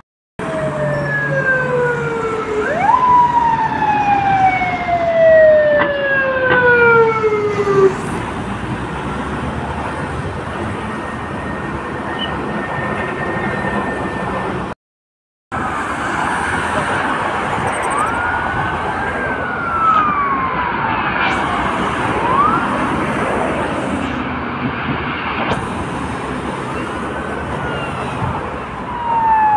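Police sirens wailing in slow sweeps, one tone falling steadily for several seconds before it stops, over steady traffic noise. The sound drops out for about half a second midway; after that, more siren wails rise and fall.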